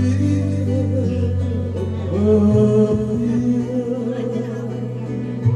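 A man singing over a music backing track with steady bass notes and plucked guitar; the sung melody comes in strongly about two seconds in.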